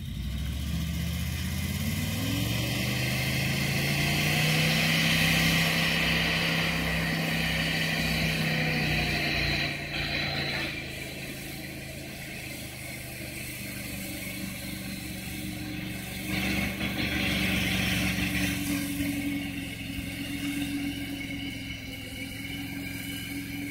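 Motor winch engine revving up to pull a glider into a winch launch. Its pitch rises over the first few seconds and holds high; about ten seconds in it drops back and runs on at lower revs.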